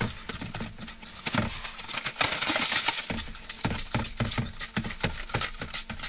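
A run of irregular knocks and clatters, with a brief rushing hiss about two seconds in, over a faint steady hum.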